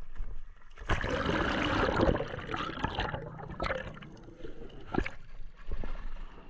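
Seawater sloshing and gurgling around a camera at the sea surface as it dips in and out of the water, loudest in the first half, with a couple of sharp knocks later on.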